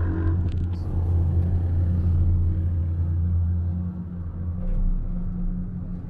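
Steady low hum inside a moving aerial cable-car cabin as it travels along the cable, with a deeper rumble near the end.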